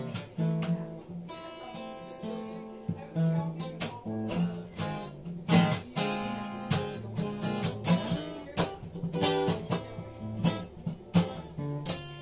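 Acoustic guitar playing a song, picked notes mixed with strummed chords.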